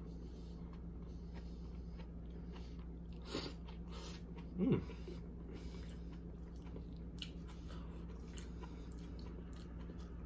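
Close-up chewing of a mouthful of baked spaghetti squash, soft wet mouth sounds with light clicks as a fork digs into the squash shell. One brief louder mouth sound a little under five seconds in.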